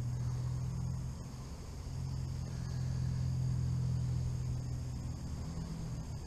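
A low, steady engine rumble that dips briefly about a second in and stops near the end, with insects buzzing faintly and high above it.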